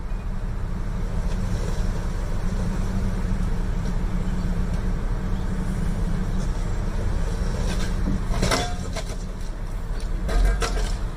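Steady low rumble of vehicles at idle, with a few short sharp knocks about eight and a half seconds in and again near the end.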